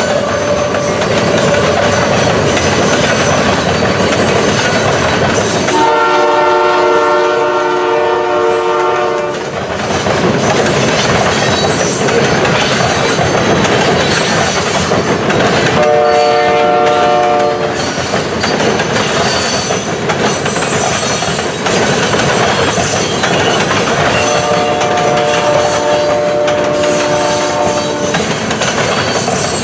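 Freight train led by a GE AC4400CW locomotive passing close by, a loud steady noise of wheels on rail, while the locomotive's air horn sounds three times: a long blast, a short one, then another long one.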